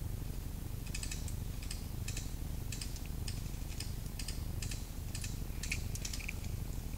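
Airsoft fire: a string of sharp, irregular clicks, about two or three a second, starting about a second in and thinning out near the end, over a low steady rumble.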